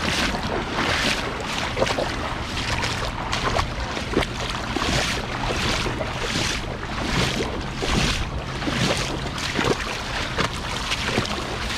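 People wading across a shallow river on foot, water swishing and splashing with each step about every three-quarters of a second, over a steady rush of water.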